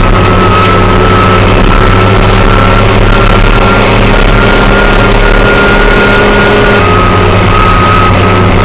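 Fiatagri 100-90 tractor's diesel engine running steadily at road speed, heard from inside the cab, with a steady high whine over the engine note. The engine note shifts down slightly about seven seconds in.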